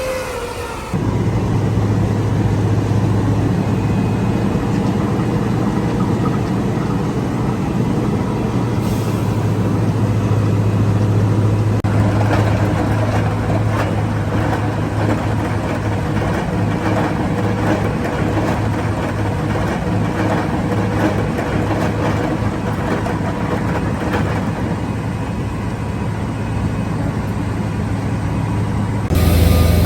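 Heavy road-construction machinery's diesel engine running steadily with a deep hum, with more clattering noise mixed in through the middle of the stretch. The sound starts and ends abruptly.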